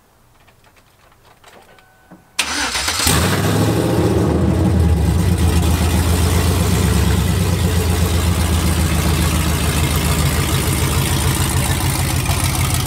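Cammed Chevy Silverado 5.3 V8 with open headers firing up about two seconds in, then idling very loud with a rhythmic low pulse from the unmuffled exhaust.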